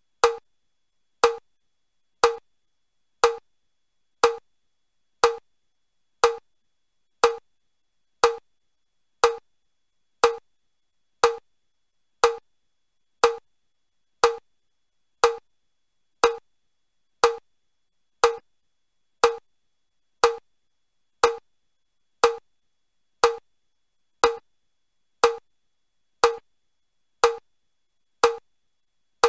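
Metronome clicking steadily at about one click a second (60 a minute): the beat for level 1 of the Chester step test, with one step onto or off the step on each click.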